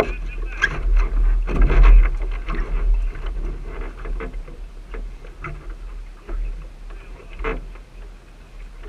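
Wind rumbling on the microphone aboard a small racing sailing dinghy, with scattered knocks and rattles from the boat's fittings and lines as the crew trims the sheets. The rumble is heaviest about a second or two in and eases later.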